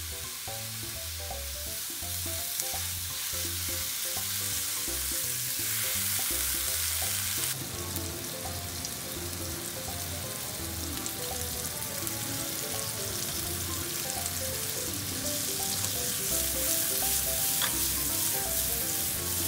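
Apple wedges sautéing in butter and sugar in a frying pan, sizzling steadily.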